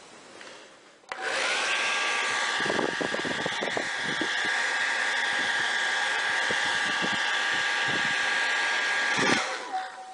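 Handheld hair dryer switched on about a second in, blowing with a steady rush of air and motor whine, with some uneven low fluttering while a wet lock of hair is dried in its stream; it switches off near the end.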